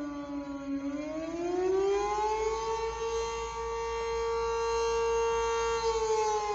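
Civil defense tornado siren sounding its weekly test wail. One steady pitched tone that climbs about a second in, holds, then slides down again near the end.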